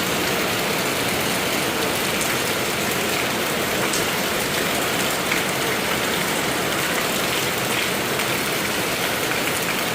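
Steady, heavy rain falling on surfaces, an even hiss with scattered drop splashes.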